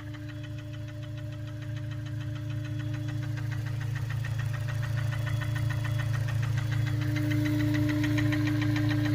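Honda S2000's four-cylinder engine running with a fast, even ticking knock over its hum, growing gradually louder. The owner is unsure whether it is rod knock or a failing timing chain tensioner.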